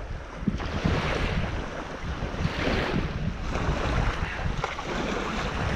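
Sea breeze buffeting the microphone with a low rumble that swells and eases, over waves washing on the shore.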